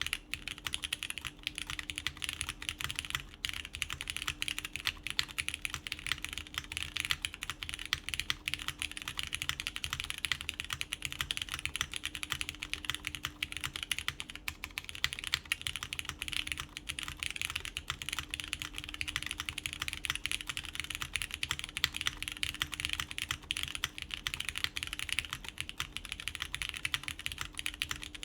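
Continuous fast typing on a mechanical keyboard with lubed Cherry MX Brown switches, a polycarbonate plate and GMK keycaps: a dense, steady run of key clicks and keycap clacks.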